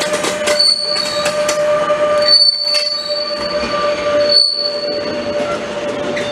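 Container freight train's wagons rolling past with a steady rolling noise and high wheel squeal: one steady tone throughout and a shriller one that comes and goes, with two brief dips in the noise.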